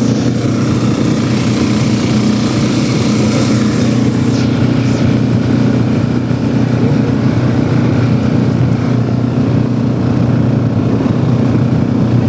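Walk-behind tractor (motoblock) engine running steadily under way, holding an even pitch.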